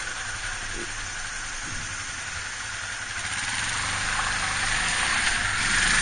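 Yamaha Serow 250 motorcycle's single-cylinder engine idling, under a steady hiss that grows louder near the end.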